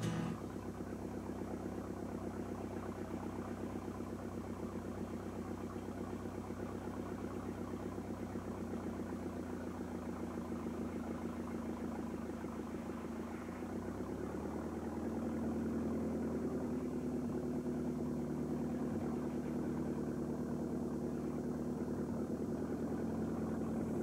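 An engine running steadily at idle, picking up speed slightly and getting a little louder about halfway through.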